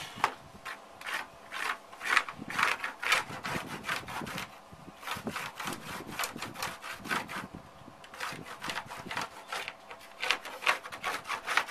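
Pen scratching across a rough fiberglass sheet in many short, irregular strokes as a line is drawn, with a quieter pause partway through.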